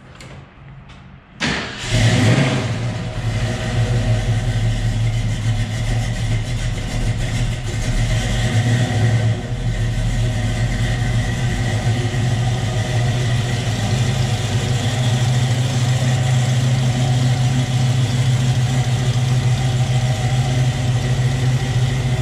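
Freshly rebuilt carbureted Ford 289 small-block V8 cranked by the starter and catching about two seconds in, after one pump of the gas. It then runs steadily.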